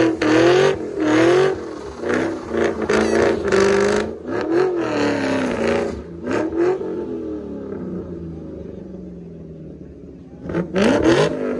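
Car engine revving hard again and again during a tire-smoking burnout, its pitch climbing and falling with each rev. It drops back to a lower, falling run in the middle and revs sharply again near the end.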